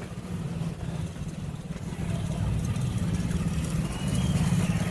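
Low, steady rumble of a motor vehicle engine, growing louder about two seconds in.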